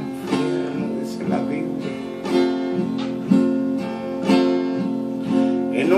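Acoustic guitar strummed in a steady rhythm, about one chord stroke a second, each chord ringing on until the next.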